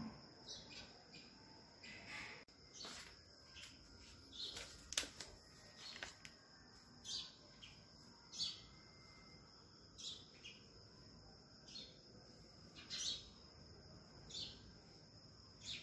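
Faint, short bird chirps, repeated every second or so, over a steady high-pitched hum, with a few sharp clicks in the first half.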